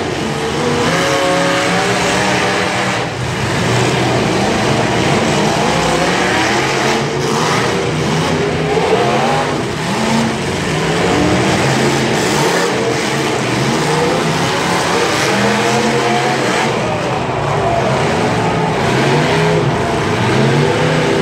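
Several 1980s-model demolition derby cars' engines revving up and down at once in the arena, over the steady din of a grandstand crowd.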